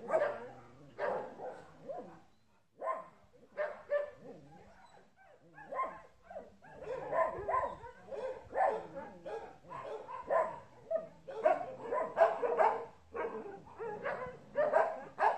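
A dog barking over and over, a few scattered barks at first, then a steady run of about two barks a second from about halfway through.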